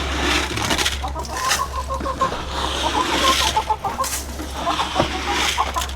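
Chickens clucking: a run of short, quickly repeated cluck notes, then scattered single clucks, over rustling and scratching.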